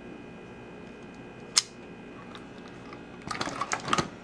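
A single sharp click about one and a half seconds in, as the tape measure built into a digital fish scale snaps back into its housing. Near the end comes a quick run of clicks and rustles as the scale is pushed into a zippered pocket of a fabric tackle bag.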